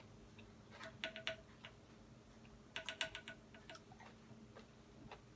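Faint clicking and tapping in two short flurries, about a second in and about three seconds in, with a light ringing tone. This is tortilla chips and fingers knocking against a salsa container as a chip is picked up and dipped.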